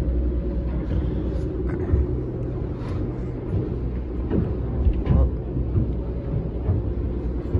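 Steady low drone of a yacht's onboard machinery, heard from inside a cabin below deck.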